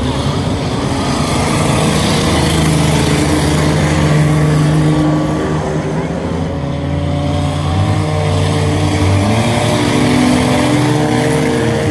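Several street cars and pickups racing on a dirt oval, their engines running hard together, with several engine notes rising and falling as they pass.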